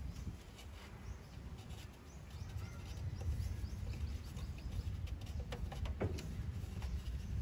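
Outdoor background of a low steady rumble, with small birds chirping faintly through the middle and a couple of light knocks about six seconds in.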